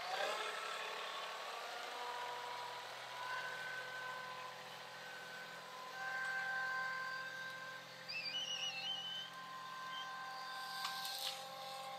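Compact tractor engine running steadily just after being started, its pitch rising a little in the first second and then holding even.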